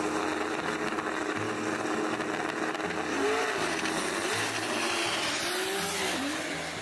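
Race car running: a loud, even rushing noise with no clear engine note, with a few short rising-and-falling tones in the middle.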